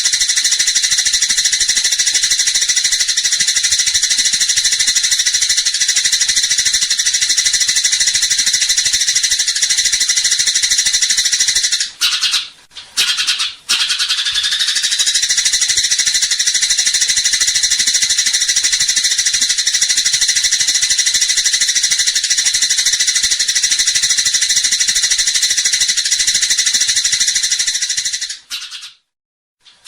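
Eurasian tree sparrows chattering in a dense, unbroken stream of rapid high chirps, the agitated chatter of sparrows squabbling. The sound drops out briefly about twelve seconds in and again near the end.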